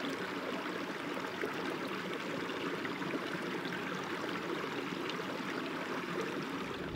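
Stream running steadily, an even rush of water.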